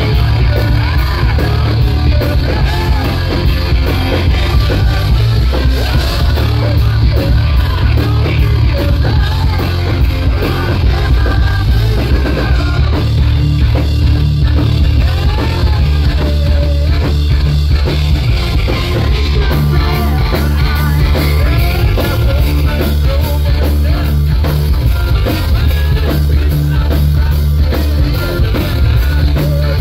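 Hard rock band playing live, loud and bass-heavy: electric guitars, bass and drums, with a man singing over them.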